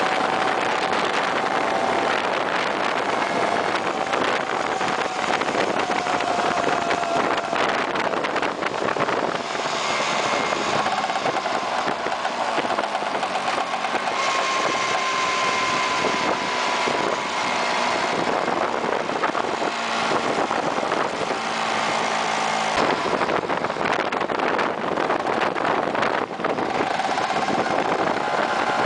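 Vespa PX scooter's single-cylinder two-stroke engine running under way, heard from on board over steady wind and road noise. Its note drifts slowly as the speed changes.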